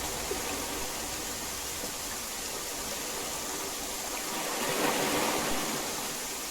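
Steady heavy rain hiss, swelling a little about five seconds in.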